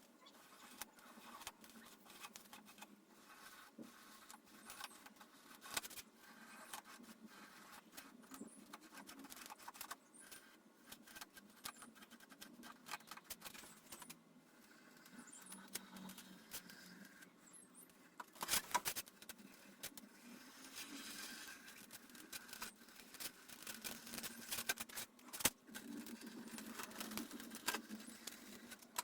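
Faint, irregular handling noises: scattered clicks, taps and scrapes, with a couple of sharper knocks about two-thirds of the way through and near the end.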